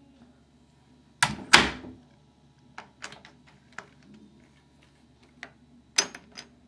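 Camera handling noise: two loud thumps about a second in, then scattered light knocks and clicks, and another sharp knock near the end.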